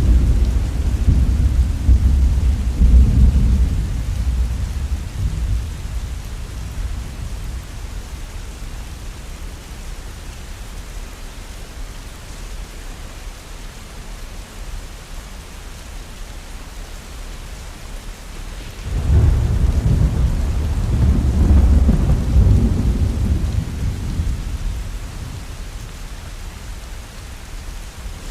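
Steady rain with thunder: a rolling rumble dies away over the first few seconds, and a second peal breaks in suddenly about two-thirds of the way through before fading again.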